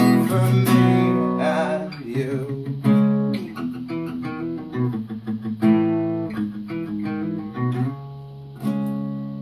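Acoustic guitar played through a run of chords, the strings plucked and strummed. Near the end a last chord is struck and left to ring out.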